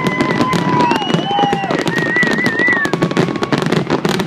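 Fireworks display: dense, rapid crackling and popping from many shells bursting at once, with several drawn-out whistling tones that hold and glide up and down over it.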